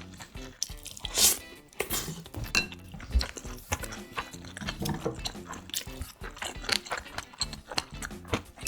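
Close-miked eating sounds: chewing and crunching bites of food, with a louder crunchy bite about a second in.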